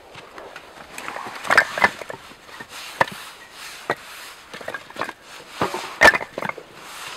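Split firewood logs knocking together as they are handled and stacked, a string of irregular wooden clunks. The loudest come about one and a half seconds in and again about six seconds in.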